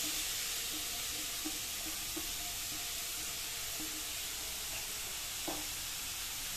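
Grated carrot sizzling steadily in hot ghee in a pan as it is tipped in from a steel bowl, with a single light knock about five and a half seconds in.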